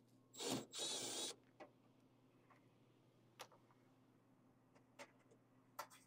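Cordless drill-driver running in two short bursts with a thin high whine, backing out the screw that holds a gas furnace's flame sensor. A few faint clicks and taps follow.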